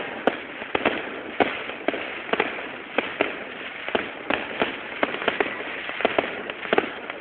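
Fireworks going off: an irregular run of sharp bangs, several a second, over a steady background hiss.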